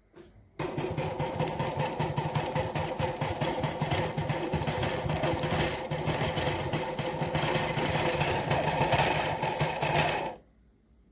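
Wilfa Svart Aroma conical-burr coffee grinder running and grinding beans for about ten seconds, then cutting off suddenly. A brief faint sound comes just before the motor starts.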